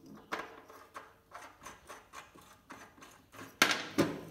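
Clicks and knocks of a welding-wire spool and small metal parts being handled and fitted on a MIG welder's spool spindle, with two sharper knocks near the end.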